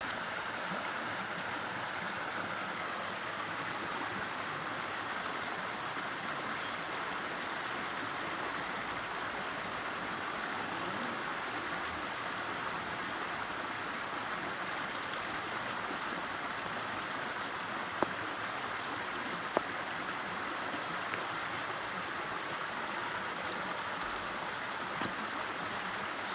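River water rushing steadily, with two brief clicks about eighteen and nineteen and a half seconds in.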